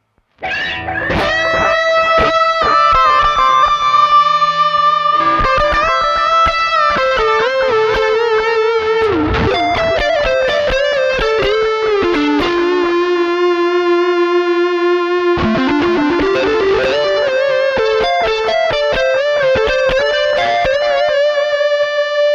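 Electric guitar played through a Way Huge Echo Puss analog delay pedal, starting about half a second in: sustained single notes that bend and waver, each trailed by echoes of itself.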